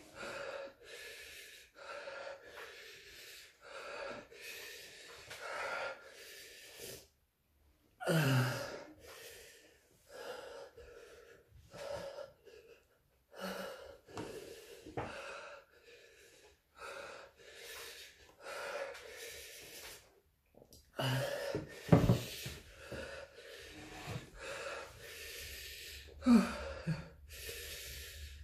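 A man breathing hard through an open mouth, gasping and hissing air in and out again and again against the burn of hot chili peppers in his mouth, with now and then a short low groan. A single sharp thump about two-thirds of the way through is the loudest sound.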